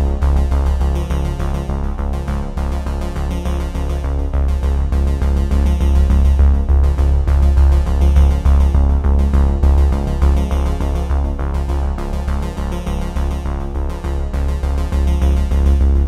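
Electronic background music: synthesizer over a steady pulsing bass beat.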